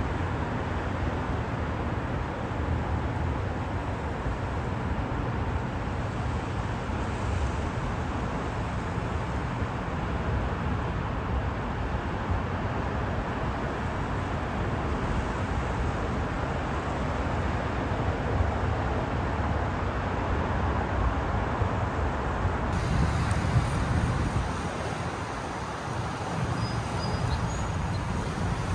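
Steady rumble of road traffic on the Verrazano-Narrows Bridge deck overhead.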